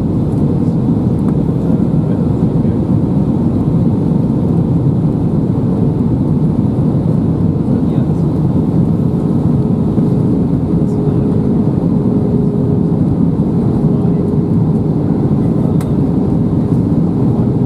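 Steady cabin noise inside a JetBlue Airbus A320 descending on approach: engines and airflow making a constant low rush, with a faint steady tone coming in about halfway through.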